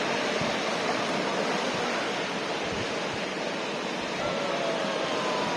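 Ocean surf breaking on a beach, a steady rush of waves with no single break standing out.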